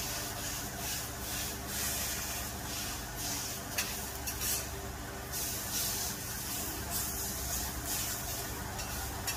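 Meat sizzling on a flat iron griddle, with metal spatulas scraping across the plate and turning it in repeated strokes, and one sharp metal tap about four seconds in.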